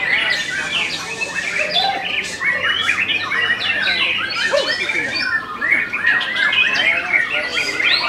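White-rumped shamas singing in competition, several birds at once: a dense, unbroken jumble of loud whistles, chirps and rapid trills.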